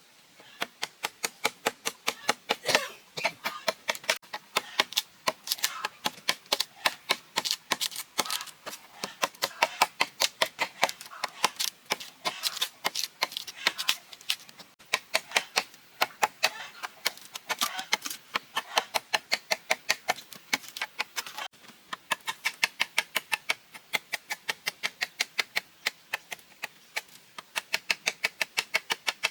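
Rapid sharp knocking, about three to four strikes a second, in long runs broken by short pauses.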